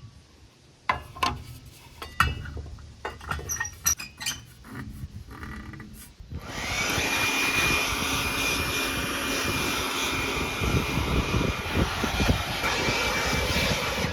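A few scattered knocks and clicks. Then, about six seconds in, a leaf blower starts with a rising whine and runs steadily, blowing dust out of a combine's plugged air filters.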